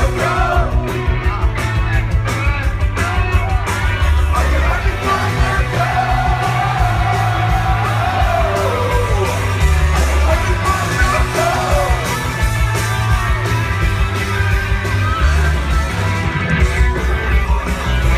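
A rock band playing live, with drums, heavy bass and guitar, and a voice singing over it. About six seconds in the voice holds one long note, which falls away a couple of seconds later.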